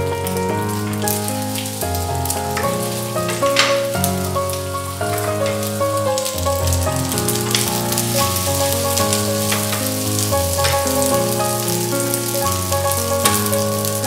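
Pasta and pork belly sizzling and crackling in a frying pan over a gas flame, with background music playing held notes over a changing bass line throughout.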